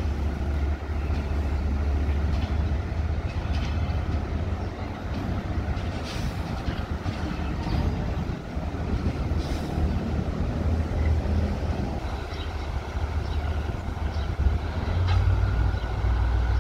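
Diesel engine of a State Railway of Thailand HAS-class shunting locomotive running as the locomotive moves slowly along the track. It is a steady low drone that grows louder near the end as the locomotive draws closer.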